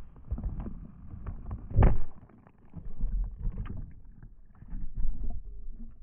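A phone's own microphone as the phone is thrown into a swimming pool: wind and handling rumble, a loud splash about two seconds in as it hits the water, then muffled low rumbling and knocks heard from under the water.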